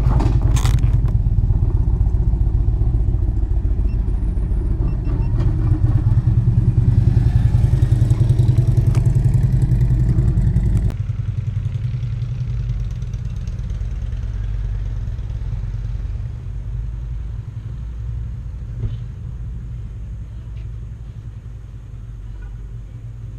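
Honda GL1800 Goldwing's flat-six engine running with road noise. About eleven seconds in, the noise drops suddenly, and the engine carries on more quietly, fading slowly.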